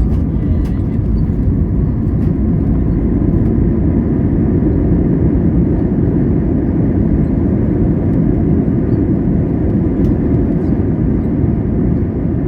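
Steady low rumble inside a jet airliner's cabin: engine and airflow noise, with a few faint clicks.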